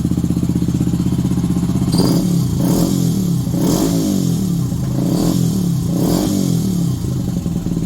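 Benelli TNT 125's single-cylinder four-stroke engine idling evenly, then revved in about five quick throttle blips from about two seconds in before settling back to idle near the end. It runs cleanly and sounds sweet.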